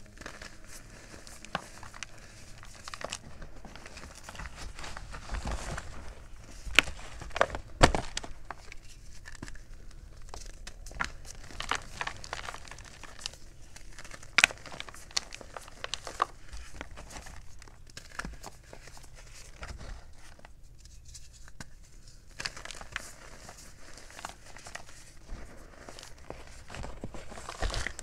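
Blocks of gym chalk being squeezed and crumbled by hand into loose chalk powder: an irregular run of soft, powdery crunches and crackles, with a few sharper snaps about seven, eight and fourteen seconds in.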